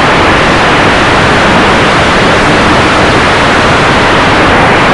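Loud, steady rushing noise of an RC model plane in flight, heard from its onboard microphone: wind and propeller noise with no distinct engine tone.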